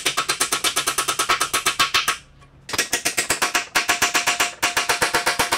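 Hand ratchet clicking rapidly and evenly, about ten clicks a second, as a transmission case bolt is run in. It stops for about half a second about two seconds in, then carries on.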